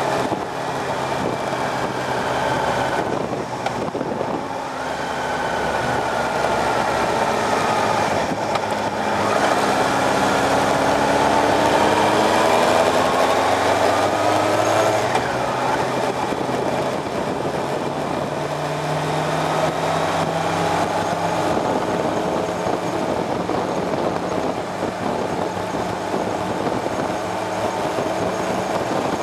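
Motorcycle engine heard from on board while riding at speed, its pitch climbing under acceleration and dropping back several times, with a steady rush of wind over the microphone.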